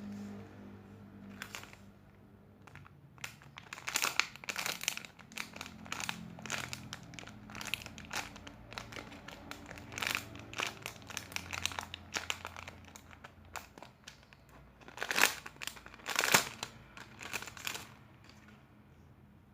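Plastic crinkling and crackling in irregular bursts as slow-rising squishy toys in their plastic wrapping are handled and squeezed. The loudest crackles come near the end.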